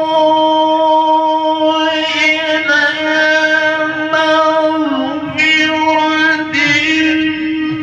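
A male Quran reciter (qari) holding one long melodic note into a microphone in the ornamented tilawah style. The pitch stays steady, with a brief dip about five seconds in, while the vowel colour shifts.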